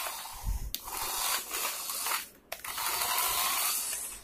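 Small electric motor and plastic gears of a cheap 1:24-scale toy RC car whirring as it drives fast. The whir comes in three runs with short breaks in between, as the throttle is pressed and let go.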